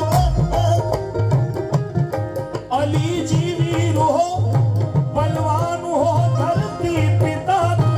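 Male voice singing a qawwali into a microphone over hand-drum accompaniment with a steady beat.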